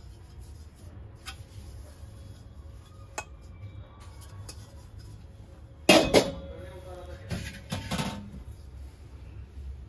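Brass kitchen vessels being handled and knocked together: a loud clank about six seconds in that rings on briefly, then a few more clinks a little later, with light taps earlier.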